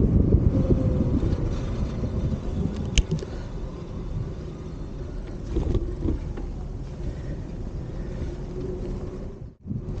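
Wind buffeting the microphone of a handlebar-mounted action camera while riding a bicycle, over the low rumble of the tyres rolling on the road. There is one sharp click about three seconds in, and the sound cuts out briefly near the end.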